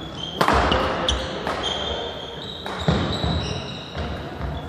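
Badminton rally: sharp racket strikes on the shuttlecock, the loudest about half a second in and several more following, with sneakers squeaking briefly on the wooden court and footfalls thudding, echoing in a large sports hall.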